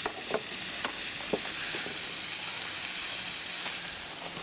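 A steady hiss with about five short, light clicks in the first two seconds.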